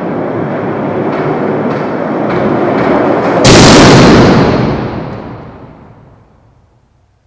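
A deep rumble that grows louder, then a sudden very loud boom about three and a half seconds in that dies away over the next three seconds.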